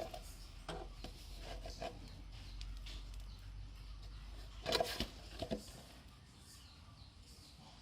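Scattered light clicks, knocks and rubbing of small hard objects being handled, loudest in a short cluster a little before the five-second mark, over a low steady hum.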